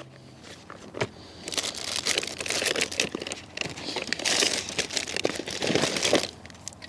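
Plastic packaging crinkling and rustling as hands rummage through the contents of an insulated cool bag, with a sharp click about a second in and dense crackling for most of the rest.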